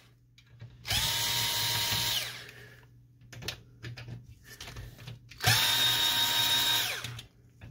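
Cordless electric screwdriver running twice, each time spinning up to a steady whine for about a second and a half, as it backs out the screws holding a laser printer's fuser unit. A few light clicks fall in the pause between the two runs.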